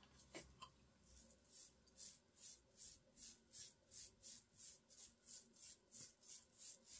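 Small paint roller rolling wet varnish back and forth over a wooden cabinet, a faint rhythmic swishing of about two to three strokes a second.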